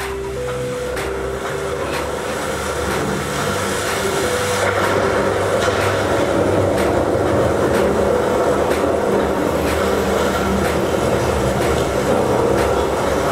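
A train running on the miniature railway, a steady rumble that grows louder over the first few seconds and then holds, with faint ticks running through it.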